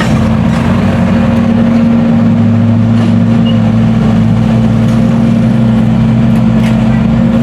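Heavy construction machinery engine running steadily under load, a loud continuous low hum; the lower part of the hum grows stronger about two and a half seconds in.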